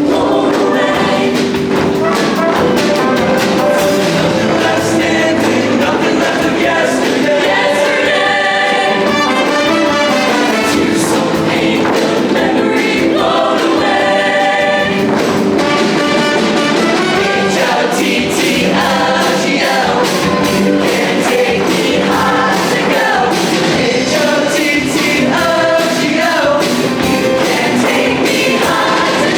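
Show choir singing a pop arrangement in massed voices over instrumental accompaniment with a steady beat, performed live.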